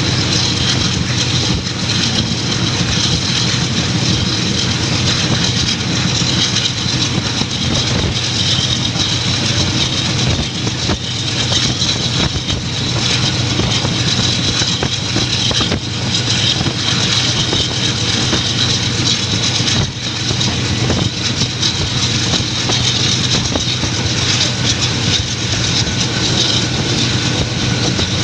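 Express passenger train running at speed, heard from an open carriage window: a steady rush of air and rumble of wheels on the track, with faint scattered clicks.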